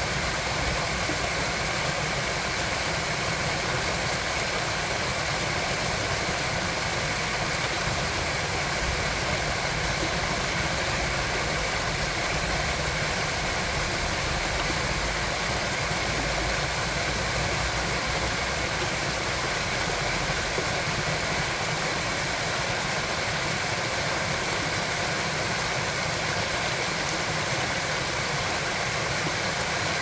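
Small waterfall splashing over rocks onto a shallow stream bed: a steady, even rush of water.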